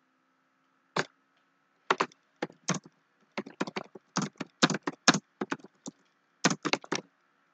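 Typing on a computer keyboard: a run of sharp key clicks in quick, irregular groups. It starts about a second in and stops shortly before the end.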